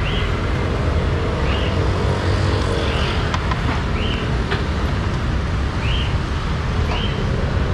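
Steady low rumble of street traffic, with short squeaky sounds recurring about every second and a couple of sharp clicks.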